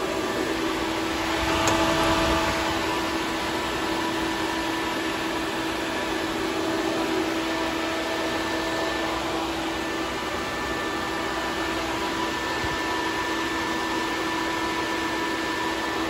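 Electric radiator cooling fans, including a 10-inch SPAL push fan, running with a steady whir and a constant hum, powered up to test that they turn on. The whir swells briefly about two seconds in.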